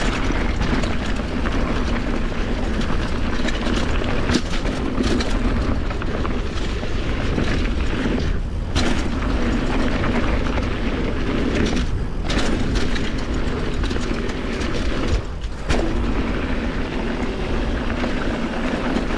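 Mountain bike ridden fast down a dirt trail: a steady rush of wind on the microphone over the tyres rumbling on the ground and the bike rattling, with sharp knocks from bumps. There are three brief lulls.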